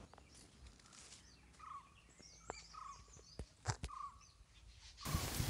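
Faint forest ambience with birds giving short, repeated chirps and a few sharp clicks. About five seconds in, a steady hiss of outdoor noise comes in.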